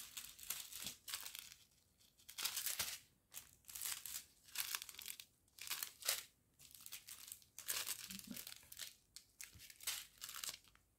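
Small plastic sachets of round diamond-painting drills crinkling as they are handled one after another, in short irregular bursts.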